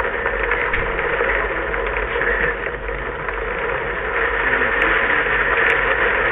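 Heavy thunderstorm rain pouring down in a steady hiss, growing a little louder about four seconds in.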